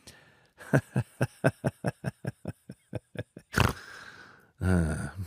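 Kitten lapping milk from a bowl: quick, even wet laps, about six a second. After the laps come a louder short burst and a brief low voice-like sound.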